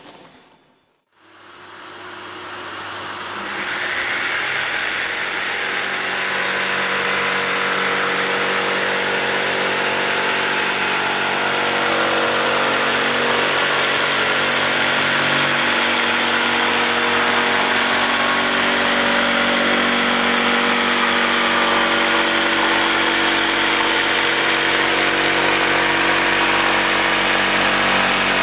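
A Makita jigsaw cuts steadily through an MDF board while a dust extractor draws the dust away through a hose clipped to the saw's extraction bracket. The noise starts about a second in and builds over a couple of seconds before holding steady.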